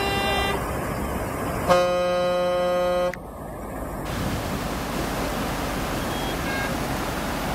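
A vehicle horn honks briefly, then sounds again with a louder blast of about a second and a half, over the steady rush of muddy floodwater running across the road.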